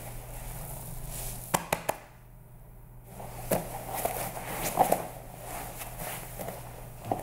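Two grapplers in cotton gis moving on foam mats: fabric rustling and shuffling with a few sharp knocks of hands and knees on the mat, three in quick succession about a second and a half in. A steady low hum runs underneath.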